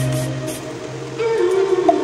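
Background music: a held bass note fading out, with a new melodic phrase entering about a second in.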